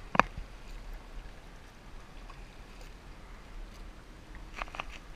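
Double-bladed kayak paddle strokes: water splashing and dripping off the blades. There is a sharp knock about a fifth of a second in, and a couple of short splashes near the end.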